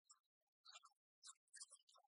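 Near silence, with only faint, choppy fragments of sound.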